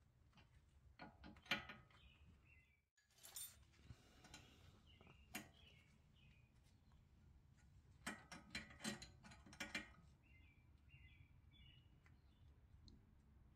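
Faint metallic clicks from a wrench working a fitting on a Brembo brake caliper, with a quick run of ratchet-like clicks about eight to ten seconds in and a short rustle about three seconds in.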